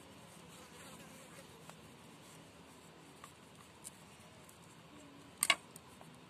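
Quiet hand work shaping a filled maida-dough pocket on a wooden rolling board, with a few light ticks and two sharp clicks close together about five and a half seconds in. A faint steady buzz runs underneath.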